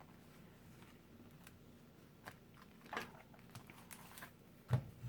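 Faint plastic clicks and small cracks as a plastic pry tool works a small plastic piece loose from the back of an Asus X205T laptop. A louder knock comes near the end.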